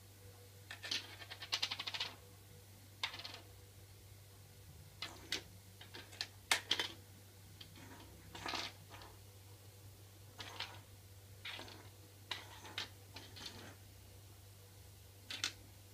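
Small plastic bottle cap clicking and clattering on a hard floor in irregular bursts as a kitten bats it about, with a quick rattling run of clicks about a second in. A faint steady low hum underneath.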